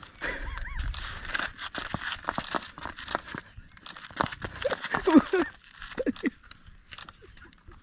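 Plastic snack bag crinkling and rustling in quick irregular bursts as burros push at it to get food. Between about four and six seconds in come a few short, low vocal sounds, the loudest just after five seconds.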